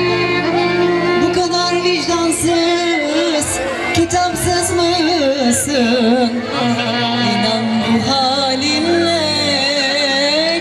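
Amplified live Turkish wedding-band music: a woman singing a wavering, ornamented melody into a microphone over violin and keyboard.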